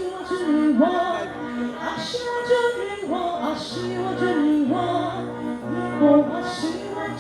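A woman singing live with instrumental accompaniment, in a slow, sustained melody. Splashy cymbal-like hits recur every couple of seconds, and a steady bass note comes in about halfway through.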